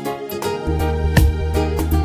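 Gospel hymn music with a deep bass and a steady beat. The bass drops out briefly at the start and returns about half a second in, and a drum hit lands just over a second in.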